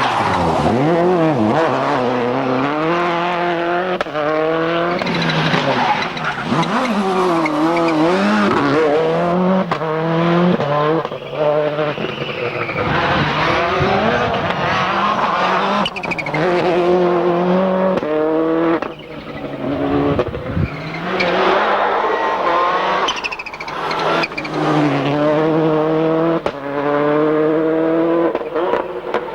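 Subaru Impreza WRC rally car's turbocharged flat-four engine driven hard, its pitch climbing and falling again and again as it revs up through the gears and backs off. There are brief drops in level, the deepest a little before two-thirds of the way through.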